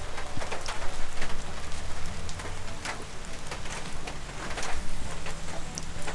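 Steady rain falling, with many irregular louder drops spattering close by.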